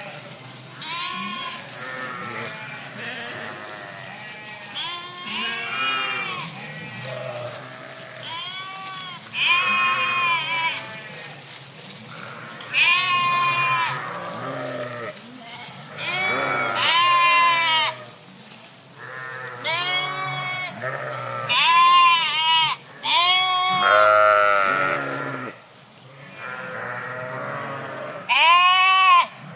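A flock of sheep bleating, many calls overlapping, some near and loud, others fainter behind, with hardly a pause.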